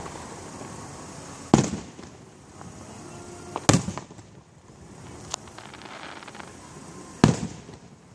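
Aerial fireworks shells bursting: three loud booms about two seconds apart, each trailing off briefly, with a smaller crack between the second and third.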